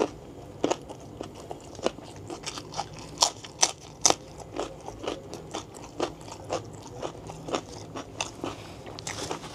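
Close-up mouth sounds of biting and chewing raw green chili and winged bean: crisp crunches about two a second, with wet chewing between them.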